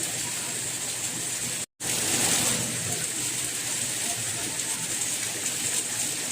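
Steady rain, an even hiss. About a second and a half in it cuts out completely for a split second, like an edit or loop splice, then comes back slightly louder.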